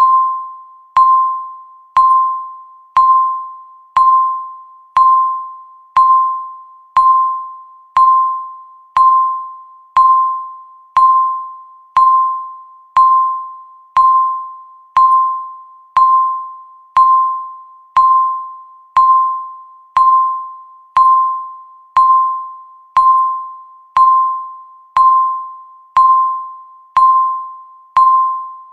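Countdown timer beep sounding once every second: a single ding-like tone at one steady pitch, each fading away before the next.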